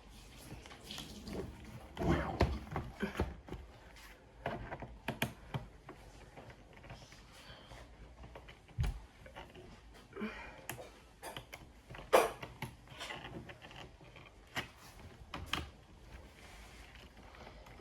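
Irregular small clicks and taps of a screwdriver and small screws being worked and handled on a laptop's plastic bottom case, with a sharper knock about twelve seconds in.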